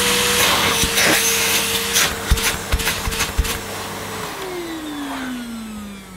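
Hitachi CV-790 Powerhouse bagless vacuum cleaner's motor running noisily with its dust compartment off, then switched off about four seconds in and slowly winding down in a falling whine. A few light clicks sound in the middle.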